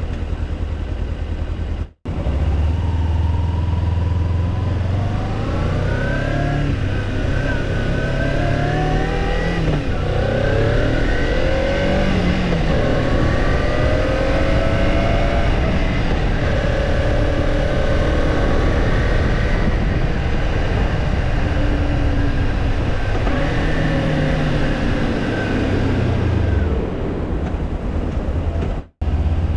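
Kawasaki Ninja 250 parallel-twin engine, heard from the bike, accelerating in several rising steps as it shifts up through the gears, then holding a steady cruising note with a constant rush of noise underneath; it climbs again and then falls away near the end. The sound cuts out briefly twice.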